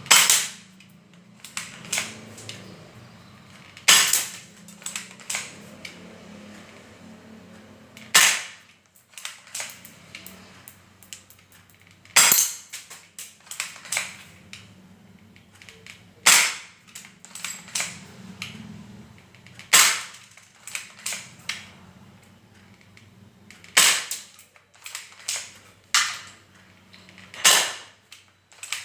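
Spring-powered airsoft gun fired eight times, one sharp crack about every four seconds, with smaller clicks and knocks between shots as it is re-cocked.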